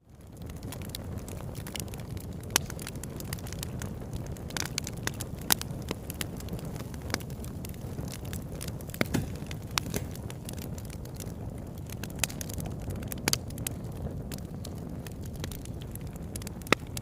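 Wood campfire burning: a steady low rush of flames with frequent sharp crackles and pops from the burning wood, fading in at the start.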